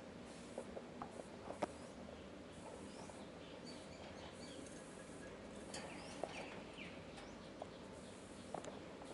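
A sugar glider chewing and crunching food, heard as faint, irregular small clicks and crackles. A few short high chirps sound around the middle.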